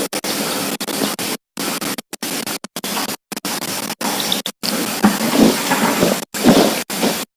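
Steady hiss of rain on the microphone, cut off a dozen or so times by brief total dropouts in the audio.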